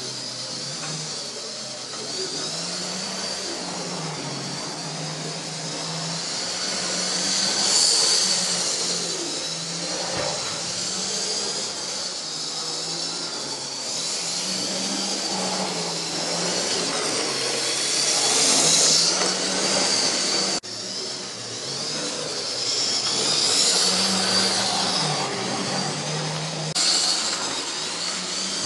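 Model railway locomotives running on the layout: their small electric motors whine at a high pitch that wavers up and down and swells twice.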